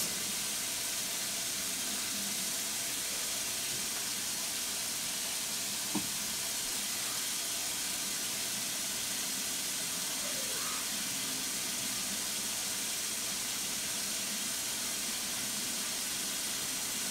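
Cabbage sautéing in a covered pot on the stove, a steady sizzling hiss, with one small tick about six seconds in.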